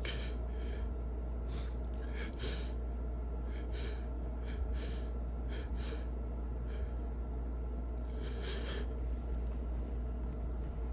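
A person sniffling through an itching nose: about a dozen short, sharp sniffs at uneven intervals, with a quick run of several together near the end, over a steady low hum.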